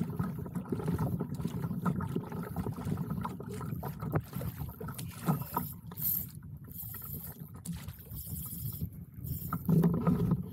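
Water lapping and rushing along the hull of a gliding fishing kayak, with wind rumbling on the microphone; louder near the end.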